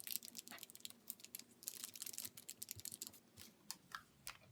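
Faint, rapid light clicking and tapping of a small tool against a mixing surface while two-part epoxy paste glue is mixed. The clicks come several times a second and thin out near the end.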